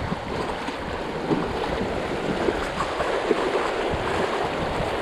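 Shallow alpine river rushing over a gravel riffle around an inflatable kayak, a steady rush of water with small irregular splashes against the hull.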